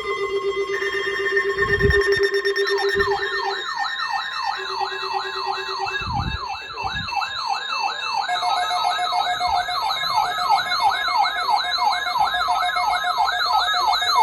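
Several electronic alarm sirens sounding together, set off by a weather radio test alert: steady alarm tones at first, joined about three seconds in by a fast yelping siren sweeping up and down about three times a second. Two short low thumps come through near the start and middle.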